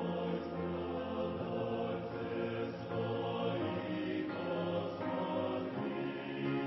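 A choir singing a hymn in slow, sustained chords, with held notes that change only every second or two.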